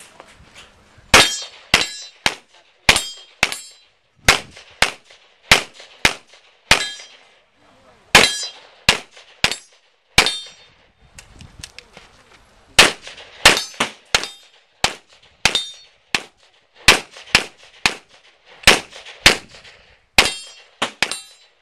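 A string of about thirty pistol shots fired during a USPSA practical shooting stage, mostly in quick pairs, with a pause of about two seconds in the middle. Several shots are followed by a brief metallic ringing.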